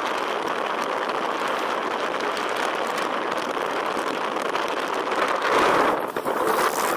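Steady rushing wind and road noise while riding a motorcycle at speed, with no clear engine note, swelling briefly louder near the end.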